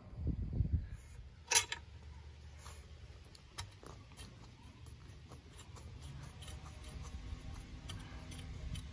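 Small metallic clicks and taps from a hand handling an alternator's sheet-metal mounting bracket, with one sharp click about one and a half seconds in and a few fainter ones later, over a low steady rumble.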